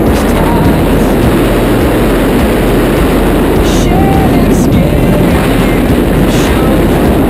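Loud, steady rush of freefall wind buffeting the wrist-mounted camera's microphone during a tandem skydive.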